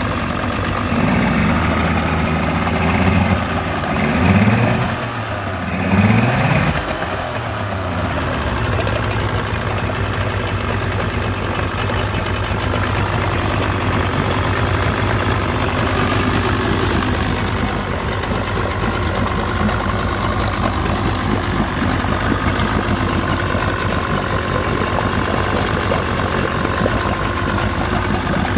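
Freshly rebuilt 1994 Evinrude 70 hp two-stroke outboard running in a test tank, set up after idle and linkage adjustment. It is revved up and back down about three times in the first eight seconds, then settles into a steady idle.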